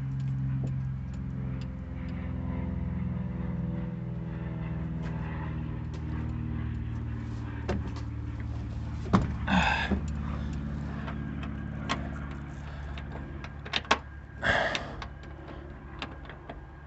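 Scattered clicks and knocks from handling parts in a pickup cab, with two short rustling scrapes about halfway through and near the end. Under them runs a steady low hum whose pitch drifts slowly.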